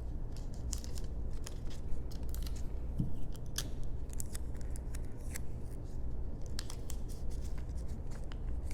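Scissors snipping, a scattering of short, sharp, irregular cuts and clicks over a low steady hum.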